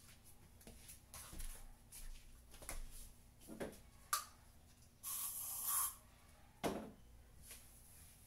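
A spray bottle hissing once for about a second as cleaner is sprayed onto a wooden tabletop, with a sharp click just before it and a knock just after. Softer brief rubs and knocks come earlier.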